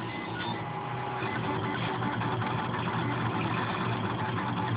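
Stepper motors of a Mendel RepRap 3D printer whirring and buzzing as the print head and bed move through a print, a steady dense mechanical sound that grows a little louder over the first second or so.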